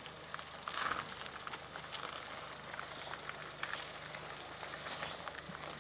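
Renault Sandero Stepway's engine running at low revs as the car creeps over rocks, a steady low hum with scattered light crackles and clicks from the tyres on stones.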